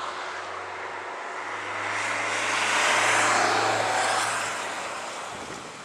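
Airbus airliner's jet engines on final approach, a steady rushing noise with a low hum beneath it that swells to its loudest about halfway through and then fades.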